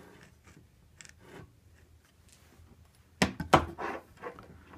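A wooden 4x4 post being turned and clamped back into a folding workbench: faint handling sounds, then a cluster of sharp knocks of wood and the bench's clamp about three seconds in.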